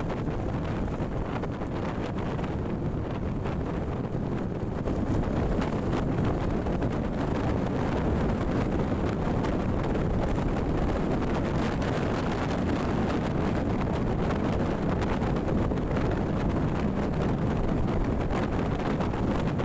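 Steady wind rumble on the microphone, with the noise of a moving vehicle underneath.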